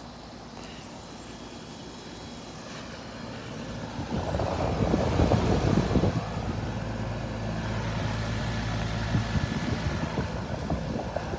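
Air conditioner unit running with a steady low hum and a rush of air, getting louder about four seconds in.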